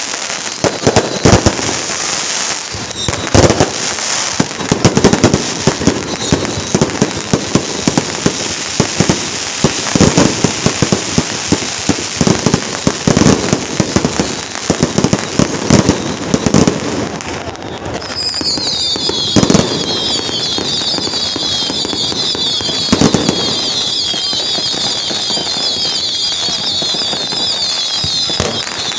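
Strings of firecrackers going off in dense, rapid crackling with heavier bangs scattered through. About two-thirds of the way in, a shrill, high warbling whistle starts and runs on over the crackle.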